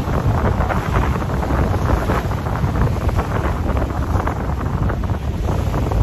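Strong wind buffeting the microphone in a steady, loud rumble, with choppy lake waves splashing against a rocky shore.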